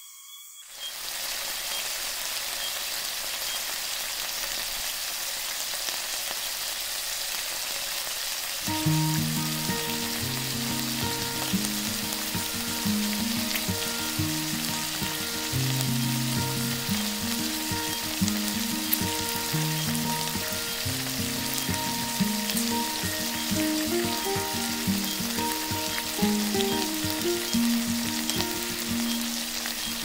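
Food frying in a pan, a steady sizzle; background music comes in about eight seconds in.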